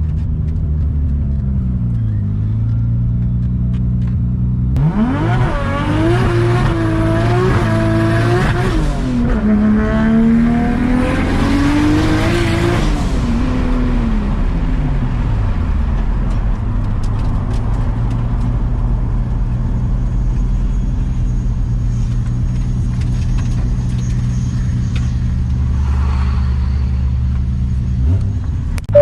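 Engine noise: a steady low drone, with a higher engine note that jumps up and wavers about five seconds in, then rises again around ten seconds and falls away.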